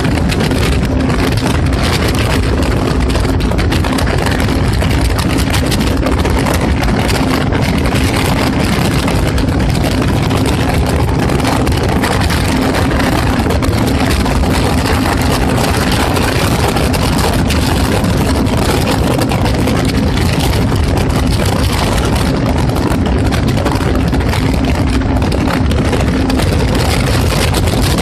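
Jet ski engine running steadily under way, heard from the handlebars under a loud, even rush of noise. The engine's steady tone holds one pitch and drops out near the end.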